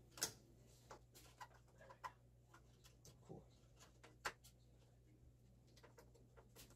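Faint, scattered clicks and taps of hands handling cables and parts inside a desktop PC case, over a low steady hum.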